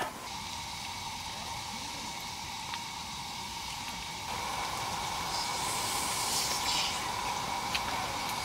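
Steady hiss with a faint high whine, a little louder from about four seconds in.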